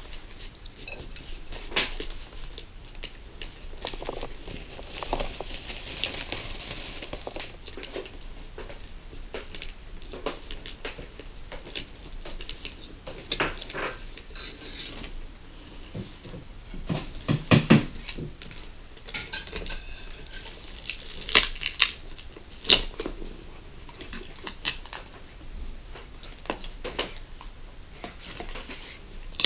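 A knife prying and scraping under the glued-in battery of a 13-inch late-2013 MacBook Pro, breaking up the battery adhesive: irregular small clicks, scrapes and knocks against the aluminium case, with a cluster of louder knocks a little past halfway and a few more sharp ones later on.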